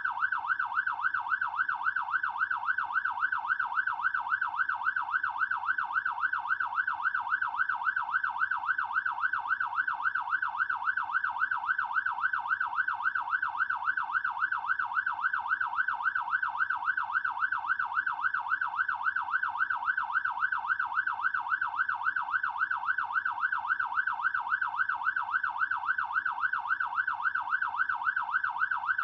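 Fire truck siren in a fast yelp, its pitch sweeping up and down about three times a second, steady and unbroken throughout.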